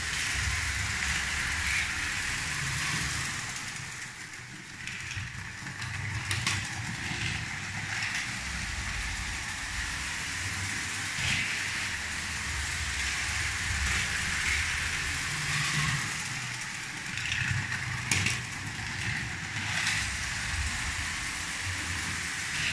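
Lego 12-volt Western train (set 726) running on its plastic track: a steady motor and wheel rattle, with a few sharp clicks along the way.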